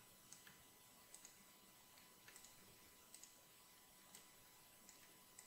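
Near silence with faint, sparse clicks of a computer mouse and keyboard, often in close pairs, about a dozen in all.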